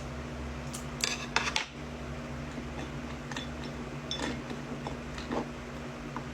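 Toy packaging being handled and cut open: scattered sharp clicks and rustles, with a cluster about a second in, over a steady low hum.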